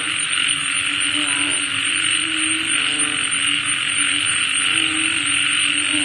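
Night ambience after rain: frogs calling in short, repeated croaks about once a second over a steady high-pitched drone.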